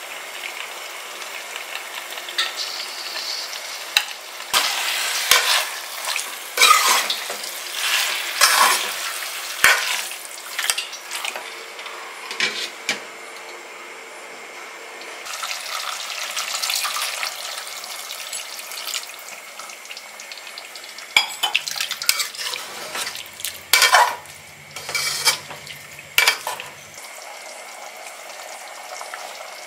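Chicken pieces being stirred in a metal pot over the heat, with a spoon scraping and knocking against the pot and a steady sizzle between the bouts of stirring.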